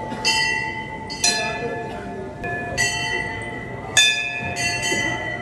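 Hindu temple bells struck by hand over and over, about once a second at an uneven pace, each stroke ringing on with a clear metallic tone.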